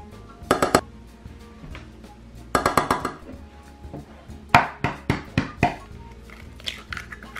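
A metal tablespoon clinking against a stainless steel saucepan in quick clusters of sharp taps as cornstarch is knocked off it into the pan, with a further run of taps on the pan about four and a half seconds in. Background music plays underneath.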